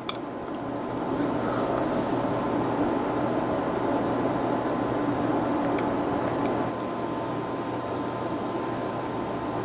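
Steady rushing mechanical noise with a faint steady whine, swelling in over the first second and easing a little about seven seconds in, with a few faint clinks of a metal spoon against a ceramic bowl.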